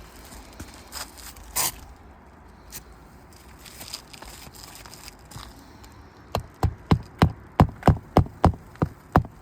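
Hammer striking an asphalt shingle roof: a few scattered taps and one sharper knock, then about six seconds in a steady run of hard blows, about three a second. Every hit knocks loose a massive amount of granules from the shingles.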